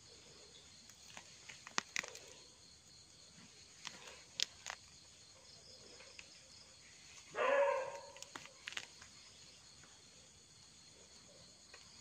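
Knife digging and prying in soil and leaf litter, giving a few short scraping clicks, over a faint steady insect chorus. About seven and a half seconds in, a brief call sounds once.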